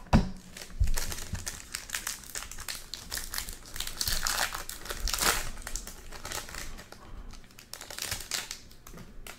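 Foil wrapper of a trading-card pack crinkling as it is handled and pulled open by hand. The crackling is dense for the first several seconds, then thins out.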